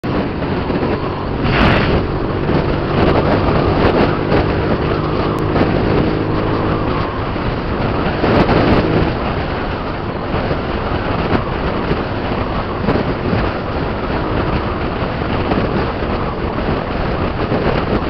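Honda Click 125i scooter's single-cylinder engine running steadily at cruising speed, under heavy wind rush on an onboard camera's microphone. The engine tone is clearest in the first half, then the wind rush covers it.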